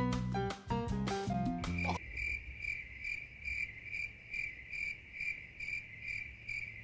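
A quick run of struck, bell-like musical notes stops about two seconds in. Then crickets chirp in a steady rhythm of about two chirps a second, the stock 'awkward silence' crickets sound effect laid over a flop.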